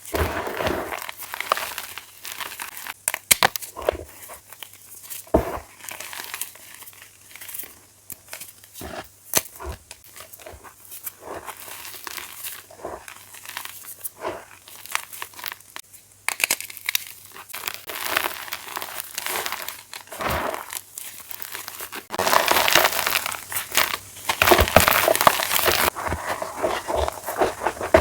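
Fresh plain chalk blocks being crushed and crumbling, a run of irregular crunches and crackles. The crunches come sparsely at first and thicken into dense, continuous crunching near the end.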